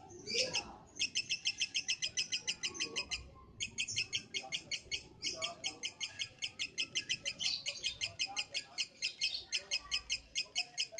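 Lovebird singing in long runs of rapid, high chirps, about nine a second, with short breaks near the start and about three seconds in. This is the long trilling song that keepers call ngekek.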